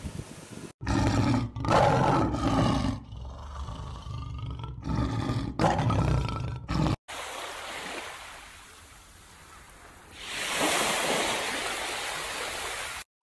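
Leopard giving a series of low, rough roaring growls, five or so calls in a row. Near the end, surf washes onto a beach.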